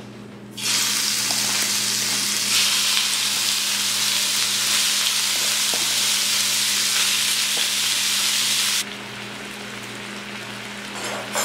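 Diced beef dropped into a hot oiled frying pan, starting a loud, steady sizzle about half a second in. Near the end the sizzle drops abruptly to a quieter bubbling fry, with a little water now added to the pan.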